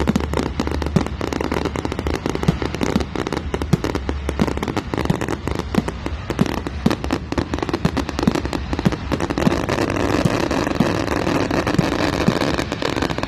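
Fireworks display: a rapid barrage of bangs and crackles, several a second, thickening into a dense continuous crackle near the end.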